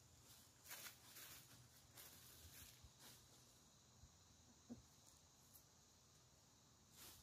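Near silence: faint outdoor room tone with a few soft rustles.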